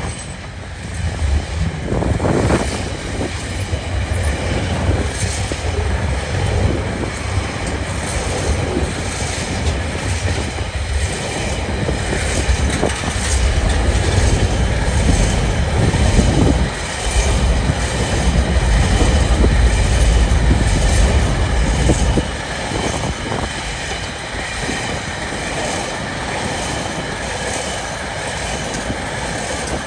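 Freight train wagons rolling past close by: a steady rumble of steel wheels on the rails with a regular clickety-clack. The rumble is loudest a little after halfway and drops off about three-quarters of the way through.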